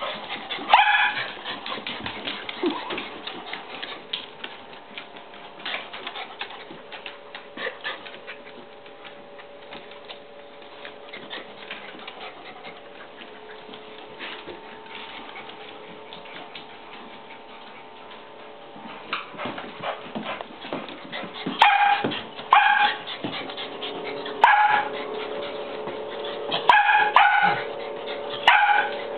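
A small dog barking at a stray beagle that has come into the house: one sharp, high-pitched bark about a second in, then a run of barks in the last eight seconds. In between come small clicks, as of claws on a tiled floor.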